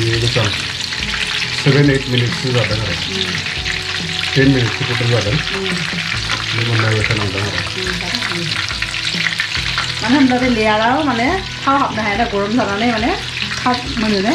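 Breaded chicken pieces deep-frying in hot oil in a steel pot, a steady sizzle, while a slotted spatula stirs and turns them. A wavering pitched sound comes and goes over it, strongest from about ten seconds in.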